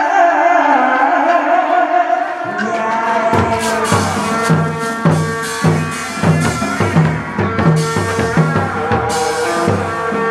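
Hát bội (Vietnamese classical opera) accompaniment music. A wavering melodic line opens it; from about three seconds in, a steady drum beat of roughly two strokes a second plays under sustained instrumental notes.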